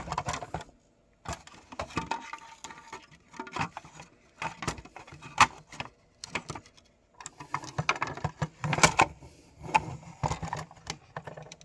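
Irregular clicks, knocks and light rattles of a Lionel toy train tender's chassis and parts being handled and fitted back into the tender shell.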